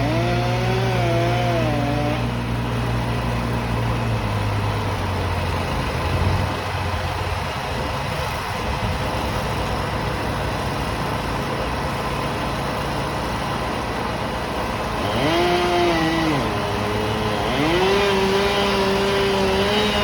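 Chainsaw running, its pitch rising and dipping, at the start and again from about three-quarters of the way in, over a steady low engine drone in the first few seconds.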